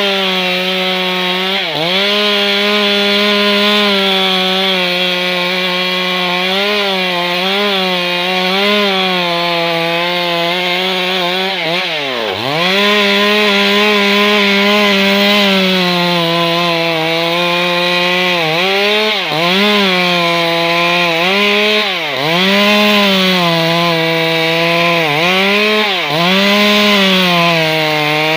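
Stihl MS 382 two-stroke chainsaw running at high revs while cutting wood, its engine note dipping sharply and recovering several times.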